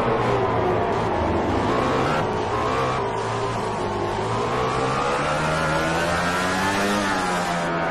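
MotoGP racing motorcycle engine, its pitch dropping for about four seconds as the bike slows, then rising steadily as it accelerates again.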